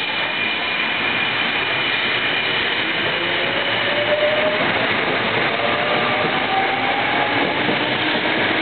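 Sanyo Electric Railway 5000-series electric train accelerating away from the platform. It is a resistor-control set with a VVVF inverter unit coupled in. The motor and inverter whine rises in pitch in several steps over the rolling noise of the cars, with a steady high tone above.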